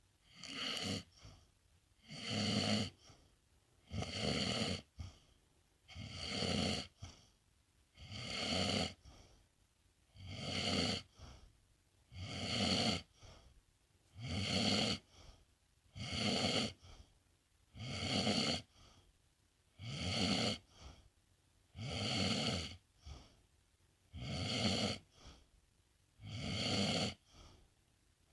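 A sleeping pet snoring in a steady rhythm, one snore about every two seconds, each swelling over about a second and followed by a short, fainter breath.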